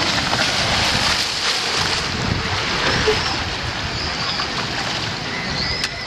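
Water rushing and splashing as a rider skims down an open water slide into its water-filled run-out lane, loudest in the first second or so, then the steady rush of the slide's running water.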